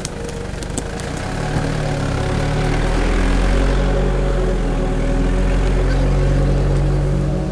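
Nissan Patrol off-roader's engine running as the SUV crawls close past through a boggy, overgrown track, growing louder about two seconds in and then holding a steady low note.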